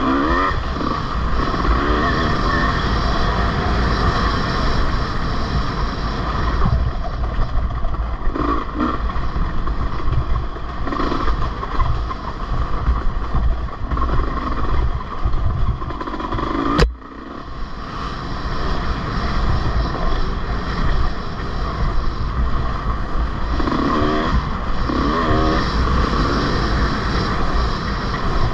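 Off-road race engine running hard, revving up and down, with a steady rush of noise over the microphone. A single sharp click about seventeen seconds in, the sound dipping for a moment after it.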